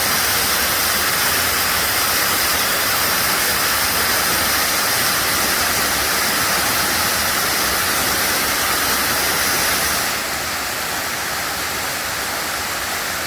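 Waterfall in a mountain valley: a steady rush of falling water that gets slightly quieter about ten seconds in.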